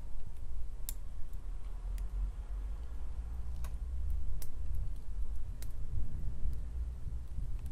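Open fire crackling in a fireplace grate: scattered sharp pops and snaps at irregular intervals over a low rumble.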